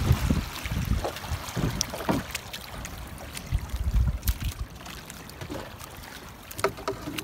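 Sea water lapping and splashing around a small paddled outrigger boat, with uneven low rumbles of wind on the microphone and a few faint knocks.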